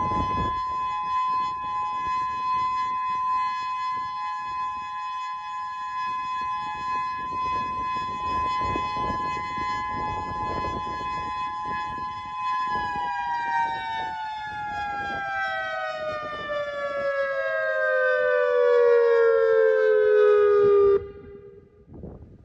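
Federal Signal Modulator II siren sounding its steady alert signal as a two-note chord. About two-thirds of the way in, the pitch falls steadily in a slow wind-down, swelling louder. The sound cuts off suddenly near the end.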